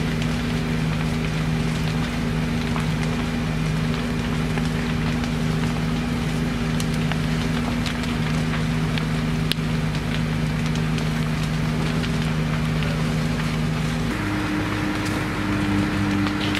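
An engine running steadily, with scattered sharp cracks and pops from a burning timber barn. About fourteen seconds in, the engine's pitch changes abruptly.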